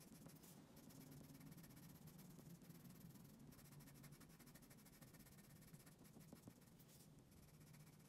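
Faint scratching of a colored pencil's tip on paper in many short, quick strokes, with a couple of brief pauses.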